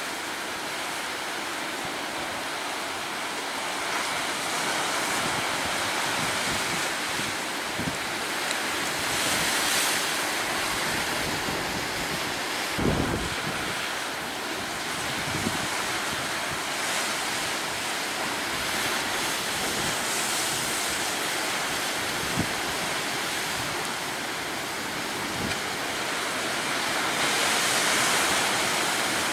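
Sea surf washing with wind blowing across the microphone: a steady rushing noise that swells now and then, with a few short, low wind buffets, the strongest about halfway through.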